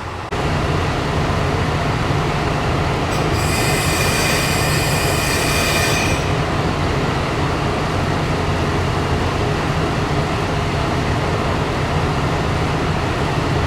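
Kanto Railway Joso Line diesel railcar running close by, a steady low engine and rail drone. Its wheels squeal with a high, ringing tone for about three seconds, starting a few seconds in.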